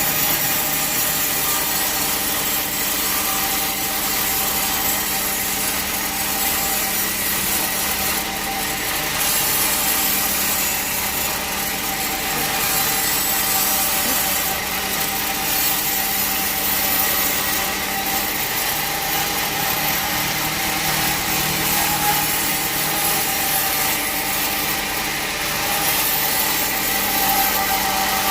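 Band sawmill blade cutting steadily through a teak log: a continuous high hiss over the steady hum of the mill's motor.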